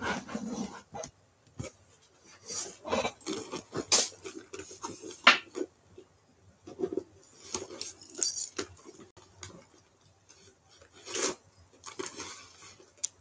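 Metal chain strap and hardware of a black leather Rebecca Minkoff handbag clinking as the bag is handled and worn on the shoulder, with leather rustling: irregular clinks and rustles.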